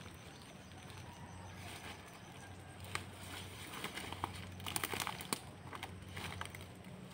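Scattered sharp knocks and clicks, clustered about four to five and a half seconds in, over a faint low steady hum.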